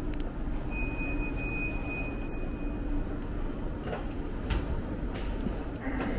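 Steady ambient background noise with a low hum. A single high, steady tone sounds for about two seconds near the start, and a few sharp clicks come later.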